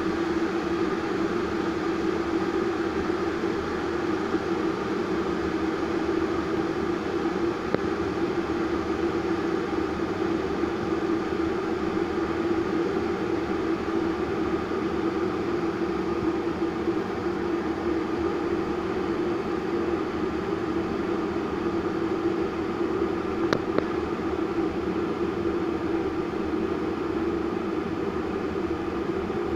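Vitek VT-1138 electric kettle heating water, a steady rushing noise from the water as it works toward the boil, with a couple of faint ticks.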